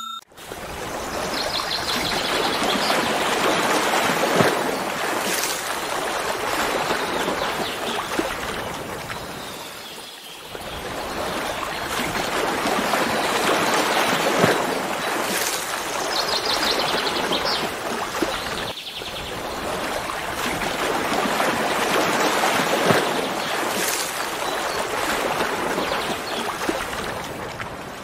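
Rushing water, like a stream or waterfall: a steady hiss that swells and fades, breaking off briefly twice.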